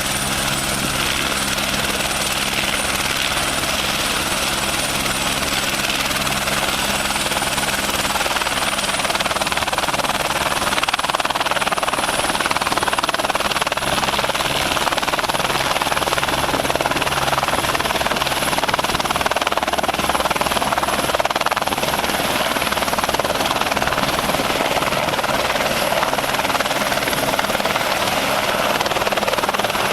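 Helicopter running steadily: a dense, even rotor and engine noise with a thin high turbine whine that rises slightly in pitch about ten seconds in.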